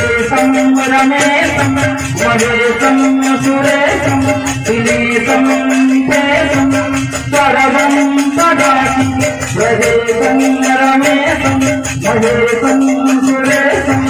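Man singing a devotional hymn into a microphone, his voice holding long notes, over music with fast, even percussion ticking throughout.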